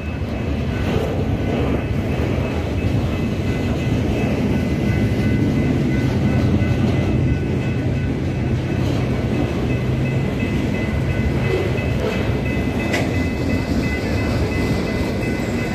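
Long freight train rolling past at close range: a continuous rumble of its wagons on the rails, with a steady high-pitched ringing above it.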